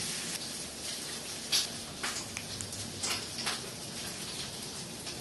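Bacon frying in a pan on high heat: a steady sizzling hiss with a few sharp crackles and pops.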